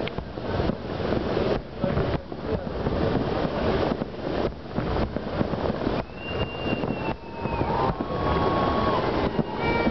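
Large fireworks barrage: many overlapping bangs and booms running together into a continuous rumble. From about six seconds in, a few high whistling tones sound over the bangs.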